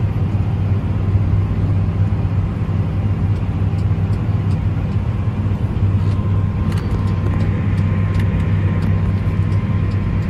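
Tractor's diesel engine running steadily under load while pulling a disc plow through the ground. From about six and a half seconds in, light scattered ticks and clicks come in over the engine drone.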